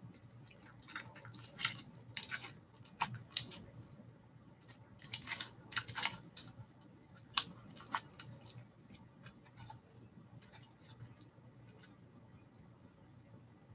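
Scattered short scratchy rustles and sharp clicks, irregular and busiest through the first eight seconds or so, then only a few faint ticks.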